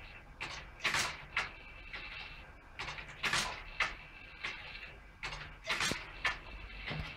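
Scratchbuilt Newcomen atmospheric steam engine, made from plumbing parts, working through its cycle. Short bursts of hiss and knocks come in groups of about three and repeat roughly every two and a half seconds as the piston and valves go through each stroke.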